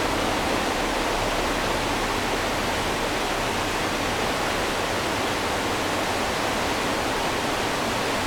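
Steady rushing noise of a river, an even hiss with no breaks or changes.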